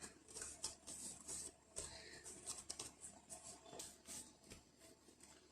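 Faint, irregular soft taps and rustles of hands working soft yeast dough.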